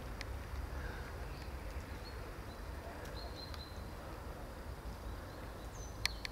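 Outdoor ambience: a steady low rumble with a few faint, short high bird chirps and several sharp clicks, one just after the start and a pair near the end.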